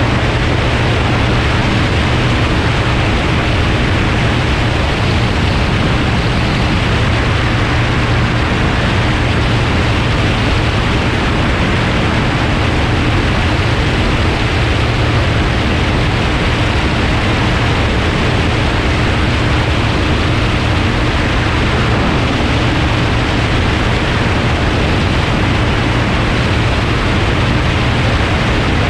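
Steady rush of airflow over a wing-mounted camera, with the even drone of the single-engine floatplane's propeller engine beneath it.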